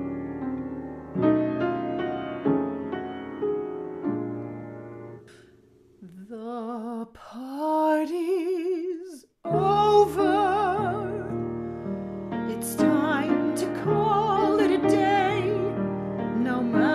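Piano chords, then an operatic female voice singing with a wide vibrato from about six seconds in. The piano joins the voice again about three seconds later.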